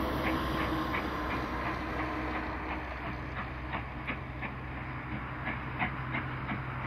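Passenger train hauled by Canadian Pacific 2816, a 4-6-4 Hudson steam locomotive, rolling around a curve: a steady low rumble with irregular short high squeaks and clicks from the wheels, a few each second.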